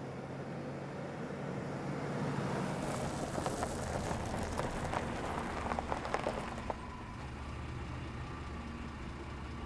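A motor vehicle running steadily with a low engine hum and road noise. In the middle there is a spell of light rattling and clicking.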